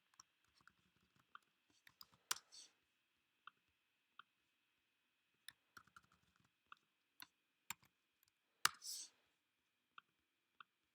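Faint, scattered clicks of a computer mouse and keyboard keys. Two louder clicks, about two seconds in and about nine seconds in, are each followed by a brief hiss.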